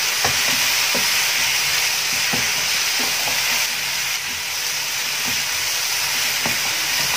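Mixed vegetables sizzling as they stir-fry in butter in a frying pan on high flame, with a steady hiss and a wooden spatula knocking and scraping the pan now and then as they are tossed.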